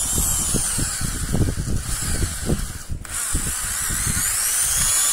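Corded electric hand drill with a newly replaced front spindle bearing, run in two short bursts: the motor's high whine rises and falls in pitch near the start and again from about three seconds in, cutting out briefly in between. Low knocks from the drill being handled sound underneath.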